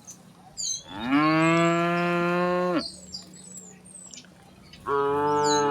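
Cows mooing: two long moos, the first about two seconds long starting about a second in, the second beginning near the end. Small birds chirp between the calls.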